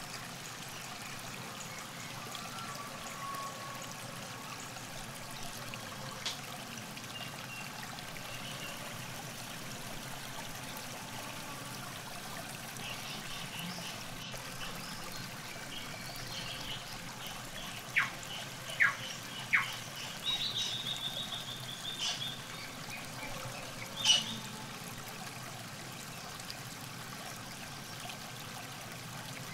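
Steady trickle of river water at the bank, with songbirds calling over it: three quick sharp chirps a little past the middle, a short rapid trill right after, and one more sharp call a few seconds later.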